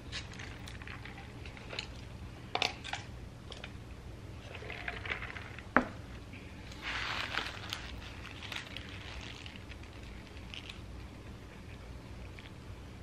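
Soft handling and eating noises over a low steady hum: paper rustling as a burger wrapper and napkins are handled, with scattered small clicks, the sharpest about six seconds in, and a brief rustle about seven seconds in.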